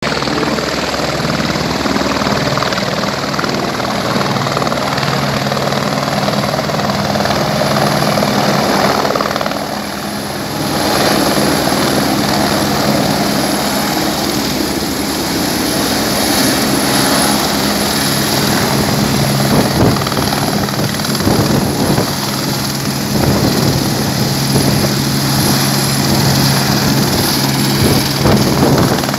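Helicopter running close by at low height, a steady droning hum with the fast thudding of its rotor, with a brief dip in loudness about ten seconds in.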